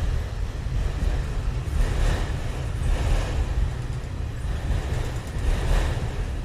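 Wind buffeting an outdoor microphone: a heavy, uneven low rumble with gusts that swell about two and three seconds in and again near the end.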